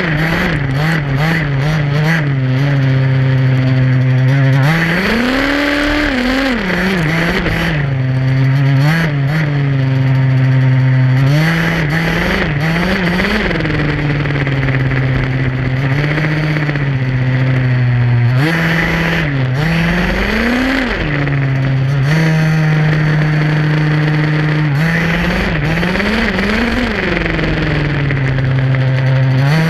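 Small two-stroke gas engine of an HPI Baja SS 1/5-scale RC buggy, heard from on board: it holds a steady low note, then revs up and drops back again many times as the throttle is worked.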